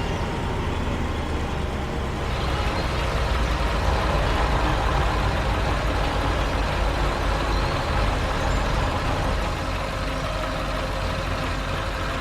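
A heavy vehicle's engine running steadily with a low rumble, growing a little fuller about two seconds in.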